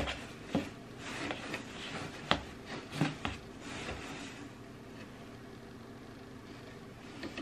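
Hand rummaging through fabric scrunchies in an open cardboard box: scattered rustles and soft knocks against the cardboard for about four seconds, then only a faint steady room hum.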